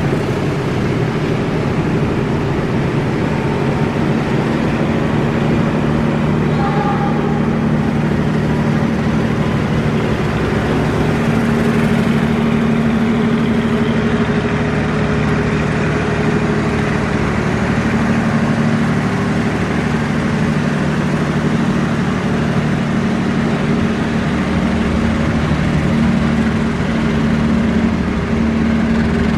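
Diesel locomotive engine running with a steady drone of several low tones.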